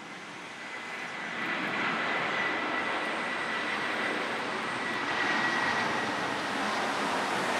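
Airbus A320's twin CFM56 turbofan engines at approach power: a steady jet roar with a thin high whine. It grows louder over the first two seconds as the airliner comes in on final approach with its gear down.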